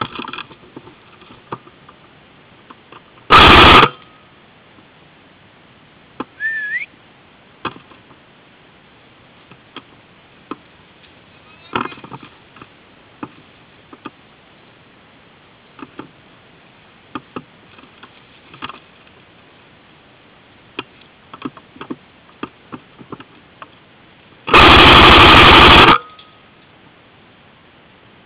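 Airsoft electric rifle fired full-auto, very loud on its own mounted camera: a short burst about three seconds in and a longer burst of about a second and a half near the end, with the gearbox motor's whine under the shots. Between the bursts, light clicks and rustles of the gun and the player moving through grass.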